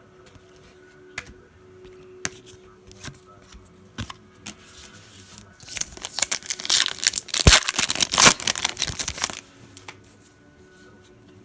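Foil wrapper of a Panini Prizm football card pack being torn open and crinkled: a dense crackle lasting about three and a half seconds in the second half, after a few light clicks and taps.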